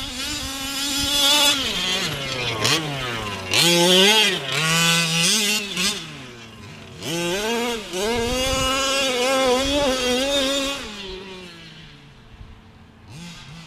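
Losi 5ive-T RC truck's small two-stroke gas engine revving up and down under repeated throttle blips, its pitch rising and dropping again and again. The sound falls away about eleven seconds in, with a few faint blips near the end.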